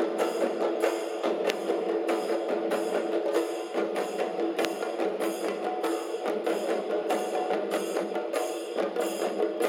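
Chenda melam: a group of chenda drums beaten with sticks in a fast, steady rhythm of dense, evenly repeating strokes.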